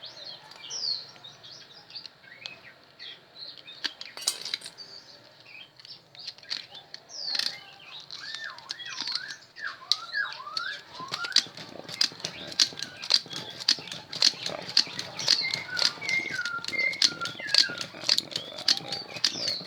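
Small birds chirping and twittering in quick, gliding notes. About halfway through, a rapid run of light sharp ticks joins in and continues.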